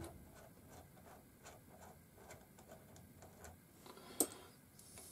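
A nut being unscrewed by hand from the lathe's tool post: faint light metal ticks, about three a second, then one sharper click about four seconds in as a part is set down.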